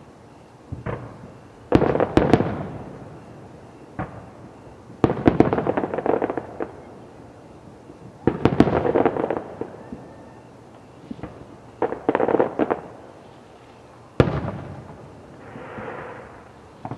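Fireworks show, aerial shells bursting in a series every two to three seconds. Each sharp bang is followed by a rolling echo, and several come as quick crackling clusters.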